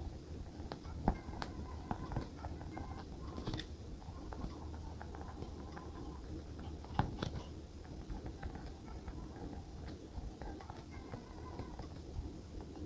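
Small clicks and taps of pen and paper on a desk during hand journaling, irregular, the sharpest about a second in and about seven seconds in, over a steady low hum and faint background music.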